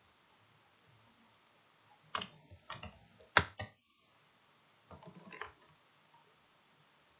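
Computer mouse clicks: four sharp clicks starting about two seconds in, the third the loudest, then a quicker cluster of softer clicks about five seconds in.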